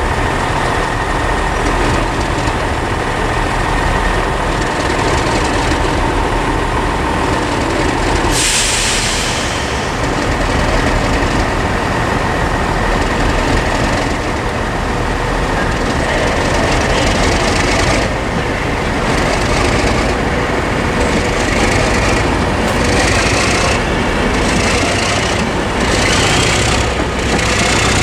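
Class 37 diesel locomotive (English Electric engine) running loud and steady on the move, with a sudden hiss about eight seconds in and a rhythmic rattle over the last ten seconds.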